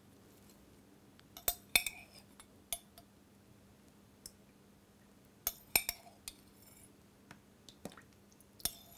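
Metal tablespoon clinking against a small ceramic jug as oil is spooned out, in a few clusters of sharp clinks a couple of seconds apart, some with a brief ring.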